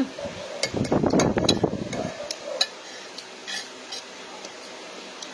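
Metal spoon scraping and clinking against a plate as food is scooped up, busiest in the first two seconds, then a few separate sharp clicks.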